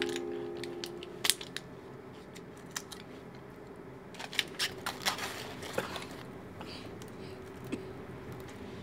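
Scattered light clicks of typing and tapping on a laptop keyboard, a few apart at first and then a quick cluster of them, over a quiet room. A sustained piano chord fades out in the first second.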